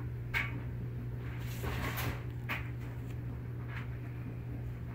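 A few short, soft rustles and swishes from a feather being waved about as a cat swats at it with its paws, over a steady low hum.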